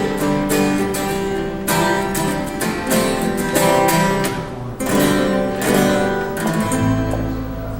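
Live acoustic guitar band music, chords strummed in a steady rhythm without vocals, with a low chord held near the end.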